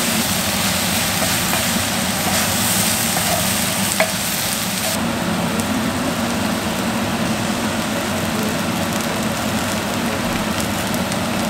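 Diced potatoes, peppers, onion and kimchi sizzling in a cast iron skillet, stirred with a wooden spatula, with one sharp click about four seconds in. The sizzle turns duller about five seconds in.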